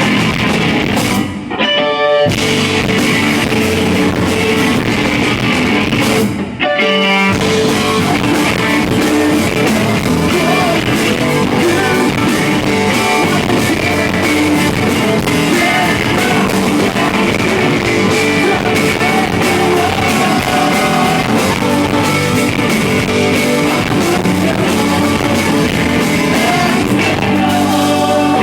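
Rock band playing live, loud: electric guitars and drum kit. The full band drops out briefly twice near the start, leaving only a few ringing notes.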